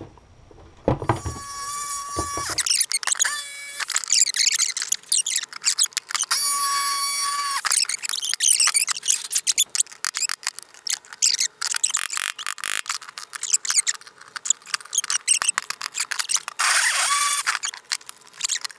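A hammer tapping a flathead screwdriver against a steel hatch strut bracket, with many sharp metal clicks and taps, to drive out a fastener whose head has been drilled off. Three high squeals of about a second each come near the start, in the middle and near the end.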